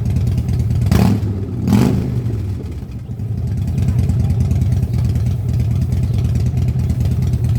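Motorcycle engine idling with a loud, lumpy exhaust, blipped twice: two short sharp bursts about a second in and again just under a second later, then it settles back to a steady idle.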